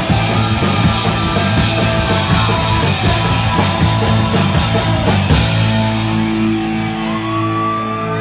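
Live punk rock band playing loud with drums and distorted electric guitar. About five seconds in the drumming drops out and a chord is held ringing, with a high whistling tone rising near the end.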